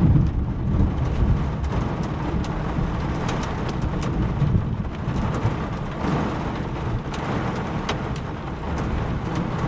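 Hail falling in strong wind: a heavy, rumbling wind noise throughout, with scattered sharp ticks of hailstones striking.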